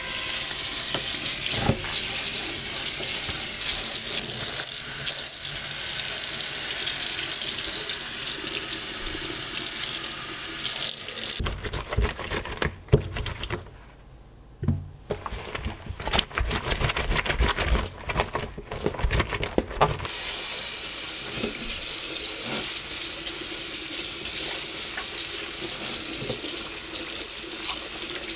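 Kitchen tap running into a stainless steel sink. About eleven seconds in the water stops for a stretch of scrubbing and knocking as rubber gloves are cleaned in the sink, then the tap runs again to rinse them.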